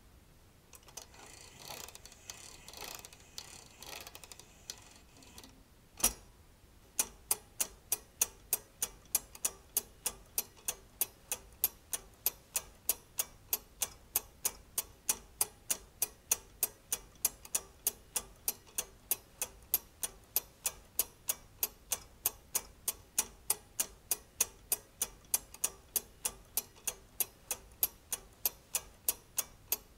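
Brass and steel escapement of a weight-driven clockwork mechanism: a faint rustle in the first few seconds, a single sharp click about six seconds in, then steady ticking at about three ticks a second.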